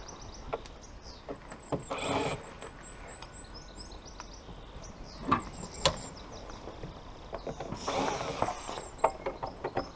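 Scattered clicks and knocks of hand tools and parts being handled on a car's soft-top frame, two sharper knocks about five and six seconds in. Birds chirp in the background.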